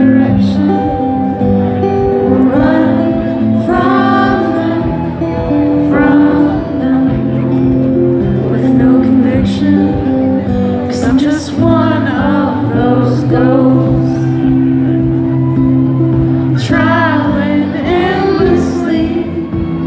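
Live female lead vocal singing over a strummed acoustic guitar, a slow acoustic song played through the concert PA.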